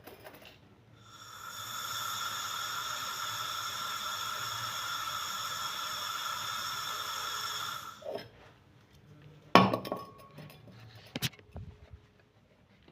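Steady hiss of pressurised gas with a faint whistle, rising in about a second in and cut off abruptly about eight seconds in, during work on a fridge's refrigerant circuit. A few sharp metallic clinks follow near the end.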